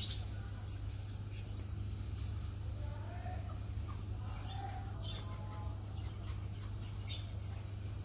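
Chukar partridges giving a few faint, short calls, mostly in the middle of the stretch, over a steady low hum and a high hiss.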